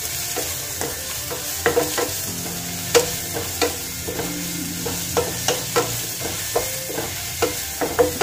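Sliced onions sizzling in hot coconut oil in a non-stick frying pan while a wooden spatula stirs them, knocking and scraping against the pan irregularly about twice a second. The onions are being sautéed until they soften.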